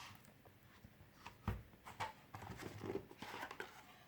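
Light handling noises of a DVD box set being opened and its contents taken out: scattered soft taps and knocks with faint rubbing.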